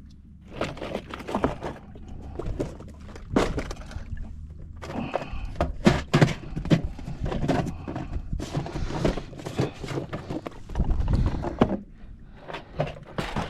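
Irregular knocks, clicks and rustling of fishing tackle being handled on a boat while a soft-plastic lure is picked out, with a few heavier thuds.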